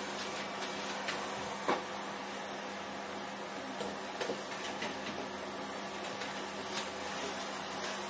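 Canister vacuum cleaner running steadily, a hum over a hiss, with a few light knocks as it is worked along the floor.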